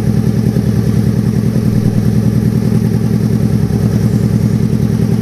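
Alfa Romeo engine idling steadily through a twin slash-cut exhaust, a deep throaty note with an even pulse. A light clatter comes from one hydraulic tappet that is a little bit noisy, put down to the engine having stood unused for a while.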